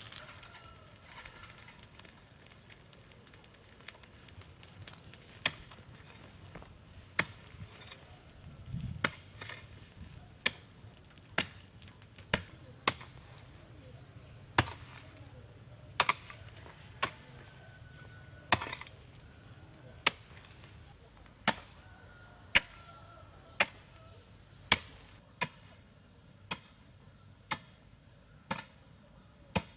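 A hoe striking into the earth again and again as the ground is dug up: sharp chopping strikes about once a second, starting about five seconds in.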